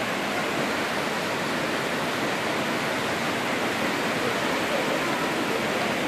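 A strong waterfall pouring down, heard up close as a steady, even rush of water.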